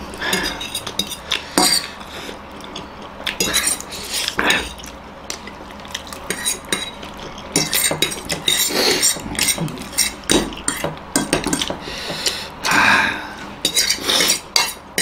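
Metal forks clinking and scraping against ceramic plates in many short, irregular clicks, with noodles being slurped and chewed between them.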